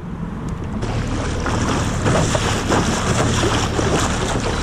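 Wind rushing over the microphone and choppy water against a small boat, over a steady low motor drone; the rush comes in suddenly about a second in.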